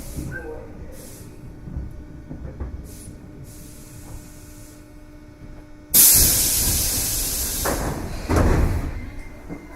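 Compressed air released from a Tobu 8000 series train's pneumatic equipment at a station stop: a sudden loud hiss about six seconds in, a second surge about two seconds later, then dying away.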